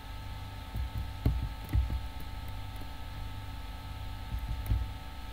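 A few soft computer-keyboard keystrokes over a steady electrical hum, mostly about one to two seconds in and again near the end.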